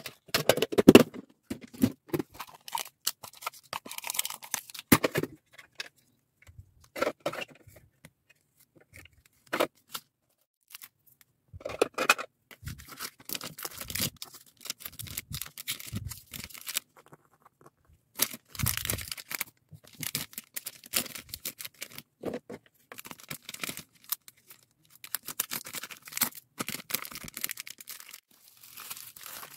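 Clear plastic packing bags crinkling and rustling as hands open, fill and fold them, in irregular bursts with short pauses and scattered sharp clicks and taps.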